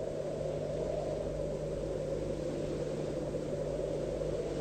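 Steady low rumbling noise with a faint steady hum under it, unchanging throughout.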